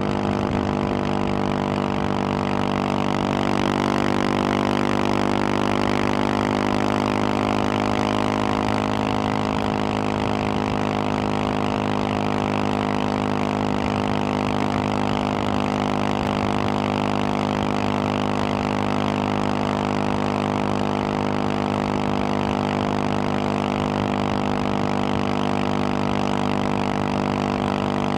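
Husqvarna 701 Supermoto's single-cylinder engine, fitted with a Wings aftermarket exhaust, running at a steady highway cruising speed, with wind and road noise from riding at speed.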